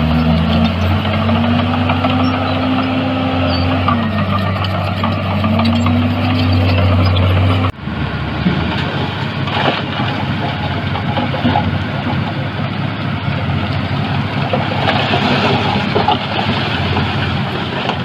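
Heavy diesel earthmoving machinery running, with the engine pitch rising and falling several times. About eight seconds in the sound breaks off abruptly and continues as a rougher, noisier engine sound.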